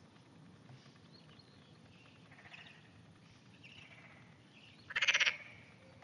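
A frog gives one short, loud, rapidly pulsed croak about five seconds in, after a couple of fainter calls.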